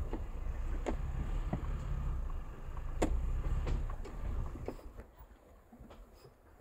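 Ford Bronco crawling in low-range four-wheel drive over a rocky trail: a low rumble with a handful of sharp knocks and clunks from tyres and suspension on rocks. The rumble dies away about five seconds in as the truck comes to a stop.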